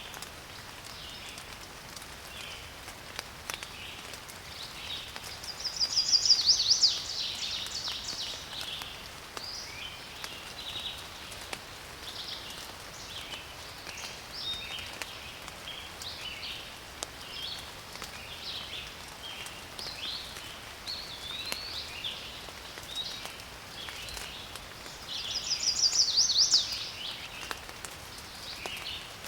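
Light rain falling with scattered drop ticks while birds chirp throughout. Twice, about six seconds in and again near the end, a louder rapid trill lasts about two seconds.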